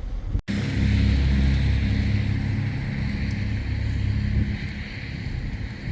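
Vehicle engine hum and road noise, steady, heard from inside a moving vehicle, after a brief dropout about half a second in.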